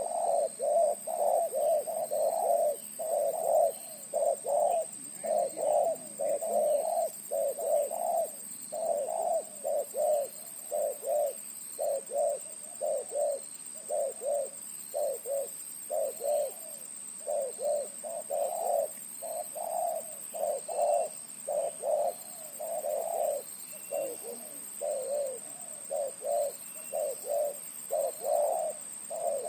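Spotted dove (terkukur) with a deep 'big voice' cooing without a break, in quick phrases of short low coos at about two notes a second. This is the call the title says it gives when facing a rival.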